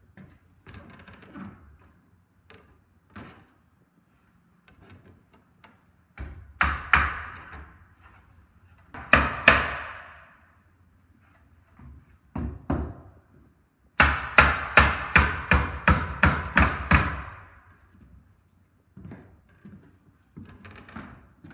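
Claw hammer driving nails into timber bracing on softwood roof trusses: a few separate blows, then a run of about ten quick strikes, about three a second, a little past the middle.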